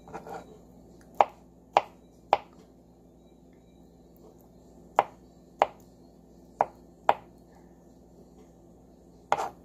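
A small kitchen knife chopping avocado against a wooden cutting board: eight sharp taps of the blade on the board, coming in short runs about half a second apart.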